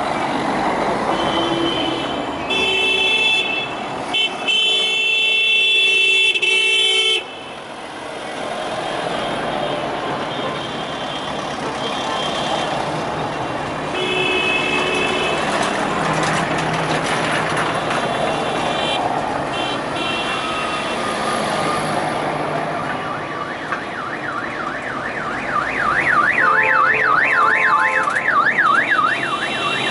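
A line of cars passing slowly, with car horns honking over and over in short toots and longer held blasts, the longest running for several seconds early on. Near the end an electronic siren joins in, warbling fast up and down about two or three times a second.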